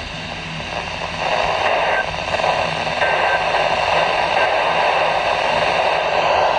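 Weather radio receiver giving a steady hiss of static, with no voice on the channel.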